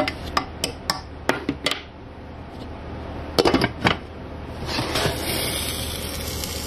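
Silicone spatula knocking and scraping in a saucepan of frying ground beef and mushrooms, then a cluster of clatters about three and a half seconds in as the glass lid goes on the pan. After that a steady sizzle under the lid.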